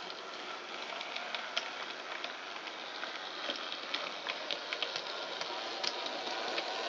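N gauge model train running: the small electric motor of a Dapol Terrier 0-6-0 tank engine whirring, with its wheels and wagons clicking irregularly over the rail joints, growing slowly louder as it comes closer.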